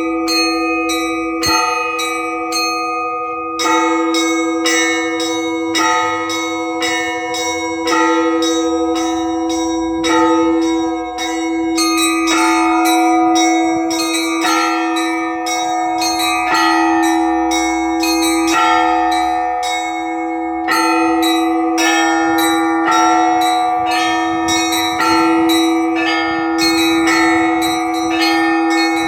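Russian Orthodox trezvon: several church bells rung by one bell ringer, the small bells struck in quick rhythmic runs, several strikes a second, over the steady ring of a larger bell. It is the festive peal that calls the faithful to the all-night vigil.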